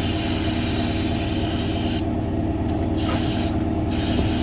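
Aerosol parts cleaner spraying in hissing bursts: a long one of about two seconds, then two shorter ones, over a steady low hum.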